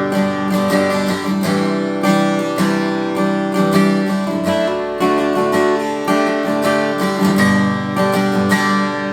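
Taylor 210ce acoustic guitar strummed in chords, a steady run of strokes with the chords ringing between them.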